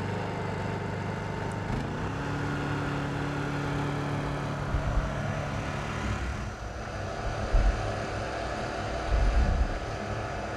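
Honda EU2000i inverter generator's small four-stroke engine running steadily. About two seconds in, its pitch rises and settles higher as the eco throttle is switched off and the engine goes to full speed. A few low rumbles come in the second half.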